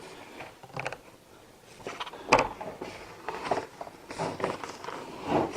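Plastic parts of a Eureka AS2113A upright vacuum clicking and knocking as the hose is fitted into its retention clips, with one sharp click a little over two seconds in.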